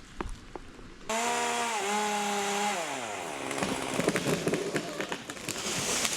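Chainsaw cutting through a limb: the engine comes in suddenly at high revs about a second in, its pitch drops as the chain bites into the wood, and it runs on under load with scattered sharp cracks and snaps.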